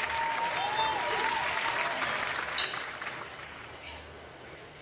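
Sizzling plate of bone marrow hissing and crackling, dying away about two and a half seconds in, with two sharp clinks of utensils as it fades.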